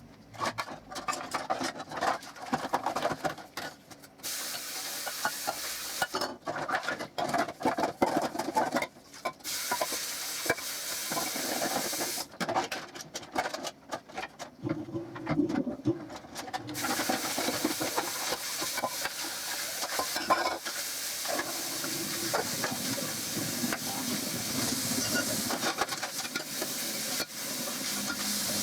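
Kitchen work: stop-start clattering and clinking of dishes and utensils, then from about seventeen seconds in a steady hiss.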